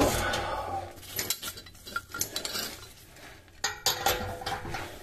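Steel socket, extension and ratchet handle clinking and rattling against each other and a rusted exhaust bolt as a socket wrench is fitted onto it: irregular metallic clinks, loudest at the start.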